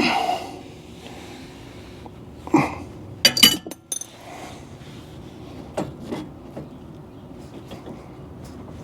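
Metal hand tools clinking and knocking against steel steering parts: a few separate sharp clinks, the loudest a quick ringing pair about three and a half seconds in.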